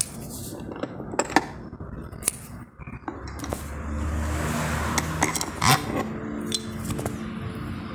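Sharp metallic clinks and taps as a metal antenna bracket and its screws are handled and fitted against a fibreglass body panel, with a steady low hum for a couple of seconds in the middle.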